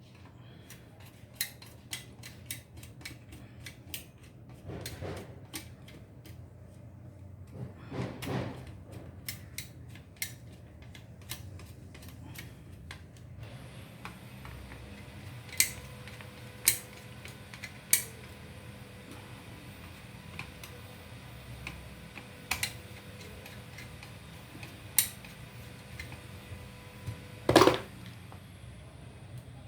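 Scattered clicks and light knocks of computer parts being handled on a bench, with a fan connector being fitted to the motherboard. About halfway a faint steady hiss with a thin whine comes in, and the loudest knock falls near the end.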